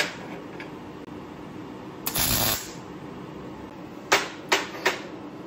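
Short pieces of steel pipe clinking and knocking as they are offered up to a turbo manifold, three sharp knocks near the end. About two seconds in, a half-second burst of crackling from a MIG welder putting on a tack weld.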